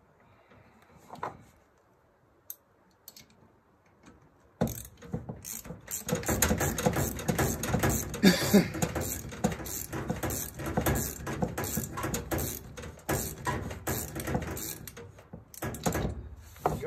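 Hand socket ratchet wrench clicking in a fast, continuous run while a fitting on a dryer's gas valve assembly is turned; the clicking starts suddenly about four and a half seconds in and stops shortly before the end, after a few faint handling taps.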